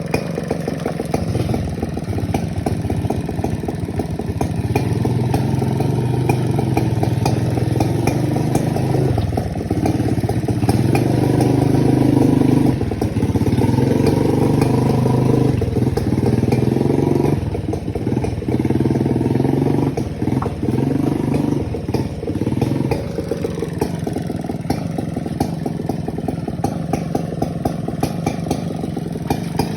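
A large chainsaw running hard as it cuts timber, its engine note steady and loudest for a stretch in the middle, then dipping briefly several times as the load changes.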